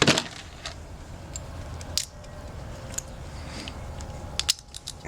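Metal key clicking and scraping against the ice-blocked keyway of a frozen stainless steel puck padlock, failing to go in. There are a few sharp clicks, with a quick run of them near the end.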